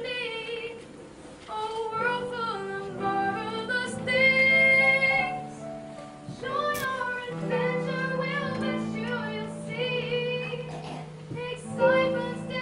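A song: a high solo voice sings a melody over sustained instrumental backing.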